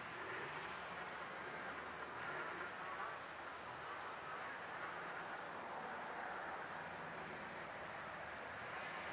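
Faint insect song: a high, even pulsing repeated about four times a second, over a light outdoor hiss.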